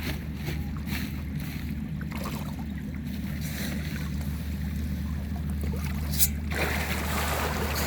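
An engine running steadily with a low, even hum. A sharp click comes about six seconds in, and a steady rushing noise joins in soon after.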